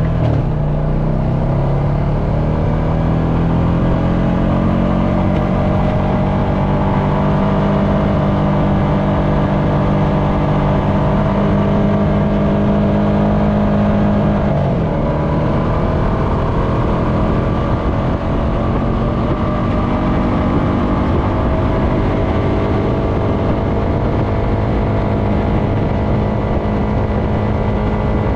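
Honda FourTrax Foreman ATV engine running under way on a dirt road: it climbs in pitch over the first few seconds and then holds steady. It drops sharply and briefly about halfway through, then rises back to a steady drone, under a constant rush of wind and tyre noise.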